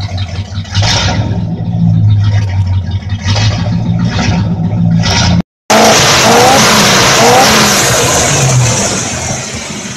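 The 305 V8 of a 1981 Chevy Scottsdale runs loudly with its exhaust cut off, rising in short revs about once a second. After a sudden cut, a louder, even rushing roar follows as the engine runs with its four-barrel carburetor open under the air-cleaner housing.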